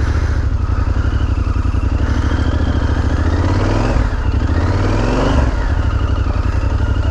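Yamaha Super Tenere's 1200 cc parallel-twin engine held at high revs while the stuck bike's rear tyre spins in soft mud. The pitch rises and falls a little midway.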